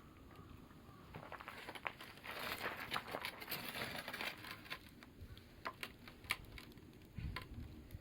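Campfire crackling: a dense run of crackling and rustling from about a second in, thinning after about five seconds to scattered sharp pops.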